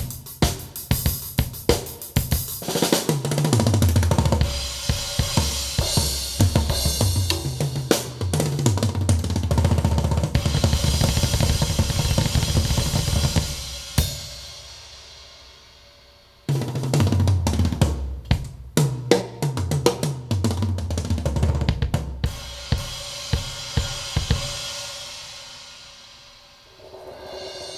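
Music with a drum kit and a stepping bass line played back through a woofer driver whose torn foam surround has been patched with layers of tissue paper, which the owner suspects still has problems. The track stops about halfway, starts again abruptly a couple of seconds later, and fades out near the end.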